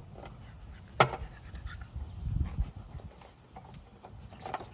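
Beagle puppies play-wrestling on grass: scattered soft knocks and rustling, with one sharp click about a second in and low rumbles a little later.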